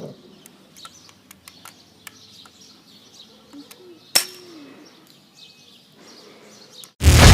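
An airsoft gun fires once, a single sharp crack about four seconds in, amid faint ticks. Loud electronic music starts near the end.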